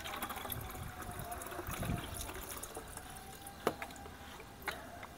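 Water poured from a plastic cup into the narrow neck of a plastic spray bottle, then the cup scooped into a bucket of water, with two sharp clicks near the end.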